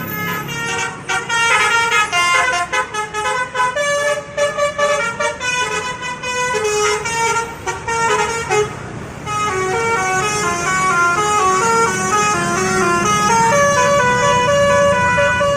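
Multi-tone telolet bus horn (Basuri type) playing a melody: quick staccato notes for about nine seconds, then longer held notes, over a low engine hum.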